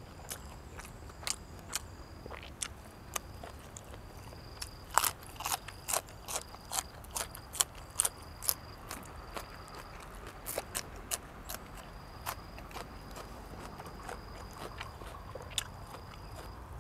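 Eating sounds from a meal of blood cockles, shrimp and raw vegetables: a run of sharp crunches and clicks from chewing and handling the food. They are most frequent and loudest about five to eight seconds in, and sparser after that.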